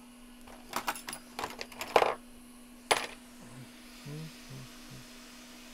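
Small metal hand tools clinking and clattering on a workbench: a quick run of sharp clicks, the loudest about two seconds in, then one more click a second later. A steady low electrical hum runs underneath.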